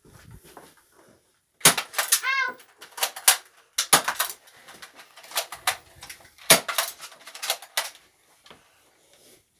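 Nerf foam-dart blasters being primed and fired: about a dozen sharp plastic clicks and clacks spread over six seconds. There is a brief high squeal about two seconds in.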